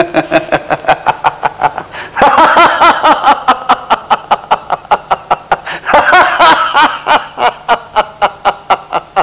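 A man laughing loudly in a long, even run of 'ha-ha' pulses, about four or five a second, breaking into higher, stronger peals about two seconds in and again about six seconds in.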